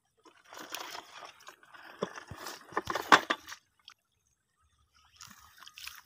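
Shallow muddy water sloshing and splashing, with gritty crunches, as someone wades through it barefoot. The sound is loudest about three seconds in, stops for about a second and a half, and comes back faintly near the end.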